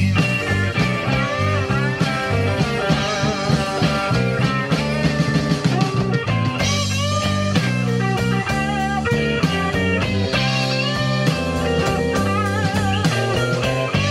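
Live blues-rock band playing an instrumental passage: an electric guitar solo with bent, wavering notes over bass guitar and drums.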